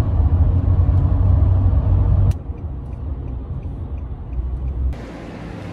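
Steady low rumble of a car driving on a highway, heard from inside the cabin. It breaks off with a click about two seconds in and carries on quieter.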